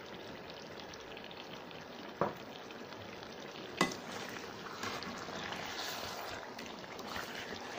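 Chicken curry sizzling in oil in a pan, with tomato puree just poured over it. A spatula then stirs and scrapes through it, with two sharp knocks about two and four seconds in.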